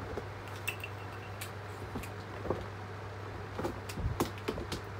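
Steady low hum with light clicks and small knocks scattered through it, the loudest knock about four seconds in.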